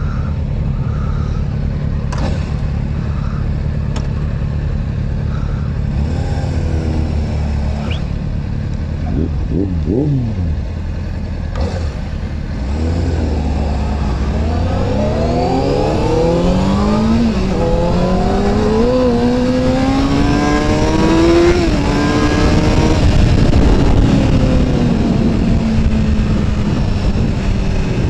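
Honda CBR sport bike's engine idling, revved briefly a few times, then accelerating hard through the gears: the pitch rises and drops back at three upshifts before settling into a steady run. Wind noise on the helmet microphone builds as speed picks up.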